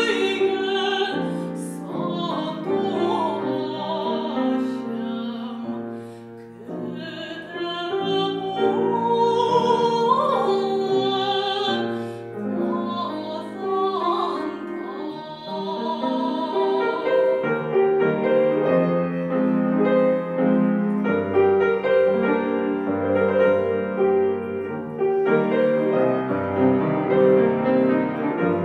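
A trained female classical voice sings with vibrato over grand piano accompaniment. A little past halfway the voice stops and the piano plays on alone.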